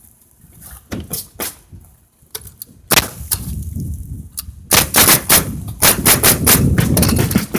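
Nails being driven on the roof: a few light taps, one sharp strike about three seconds in, then a quick run of strikes near the end.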